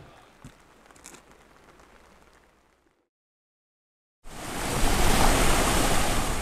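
The tail of music fades out into a second of dead silence. Then a loud, steady rush of water cuts in abruptly about four seconds in.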